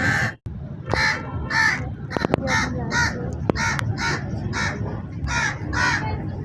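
A crow cawing over and over, harsh short caws about two a second, after a brief break just after the start. A few sharp clicks come between about two and four seconds in.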